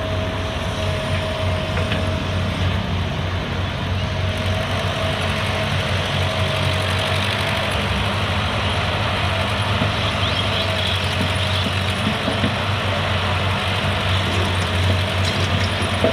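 Diesel engines running steadily: a Caterpillar E120B hydraulic excavator working as it swings and dumps a bucket of soil into a tractor trolley, with a farm tractor idling alongside. A faint steady whine fades out about seven seconds in.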